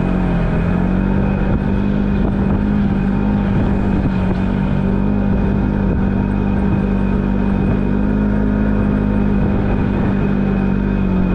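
Polaris General XP4 side-by-side driving along, its parallel-twin engine holding a steady drone at an even pitch.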